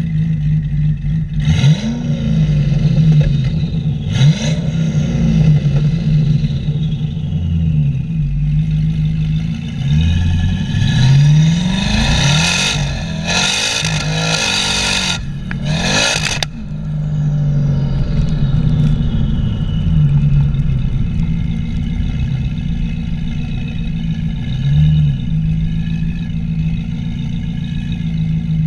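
Twin-turbocharged V8 of a Lingenfelter-built 2008 Corvette, heard from the rear bumper, running at idle with two short revs a few seconds in. It then accelerates hard for about five seconds before cutting off sharply and settling back to idle. A falling whistle trails the revs.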